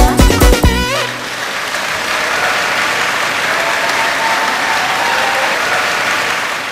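A dance-pop song with a heavy beat ends about a second in, and steady applause follows.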